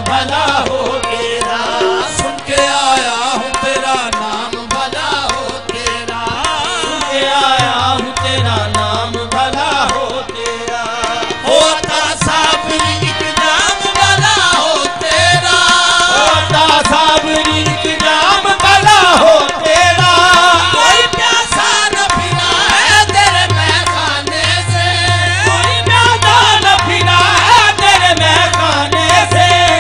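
Qawwali music: tabla drumming under melodic singing voices, with the drum's low tones dropping out for a stretch in the middle and returning near the end.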